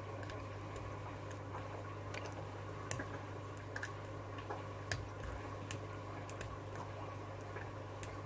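Faint, irregular clicks and ticks of a hand-made pick working the pins inside an ISEO pin-tumbler lock during single-pin picking, over a steady low hum.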